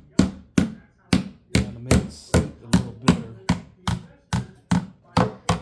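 Steady series of sharp taps, about two or three a second, on the Klipsch ProMedia 2.1 subwoofer driver to knock it into place in its seat.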